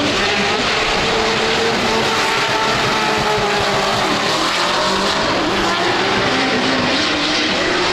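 Drift cars running on track: engines revving high, their pitch rising and falling, over a steady loud wash of tyre noise.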